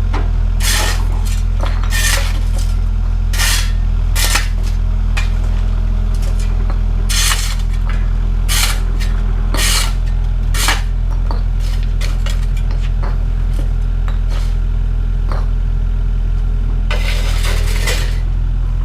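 Excavator's diesel engine running steadily while the steel bucket knocks and scrapes against mortared bricks and a concrete footer, breaking them up. The bucket makes a string of sharp, irregular metallic clinks and scrapes, with a longer stretch of scraping near the end.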